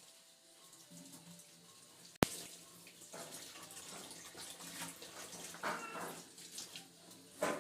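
Water running from a kitchen tap into the sink, uneven as things are rinsed under it, with a single sharp click about two seconds in and a louder burst near the end.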